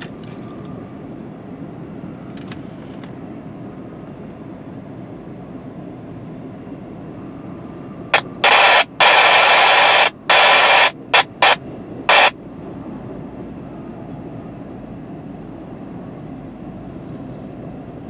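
Railroad two-way radio with its squelch opening: a run of loud, abrupt static hiss bursts about halfway through, over a steady low rumble.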